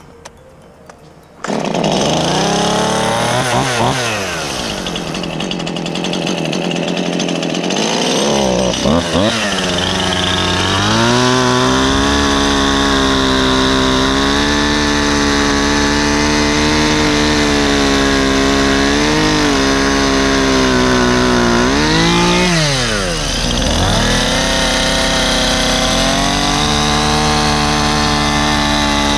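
Gas chainsaw cutting up a fallen tree: it comes in loud about a second and a half in, revs up and down, then runs at high throttle with its pitch sagging and recovering as the chain works through the wood, with a brief drop and rev back up near the end.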